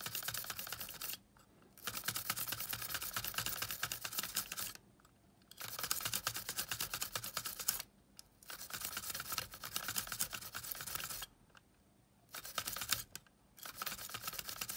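Small stiff-bristled brush scrubbing the shaft inside a Sony Walkman WM-FX483 cassette mechanism, cleaning it during repair. It comes in about six bouts of quick scratchy strokes separated by short pauses.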